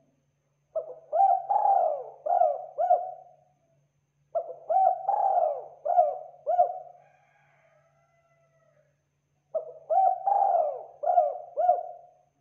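Spotted dove cooing: three phrases of about five quick coos each, a couple of seconds apart.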